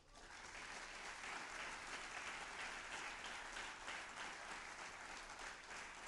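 Large seated audience applauding: many hands clapping, setting in all at once and holding steady.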